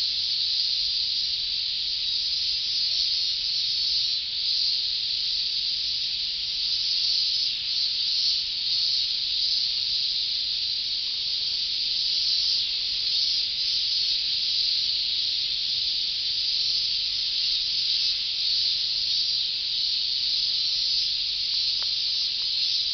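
Dense chorus of many cicadas singing at once, a steady high-pitched hiss that swells slightly now and then without a break.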